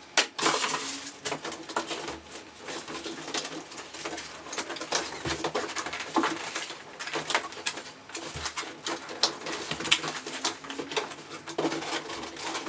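Cardboard box and packing material being handled: irregular rustling, scraping and light knocks and squeaks as the packing is worked loose by hand.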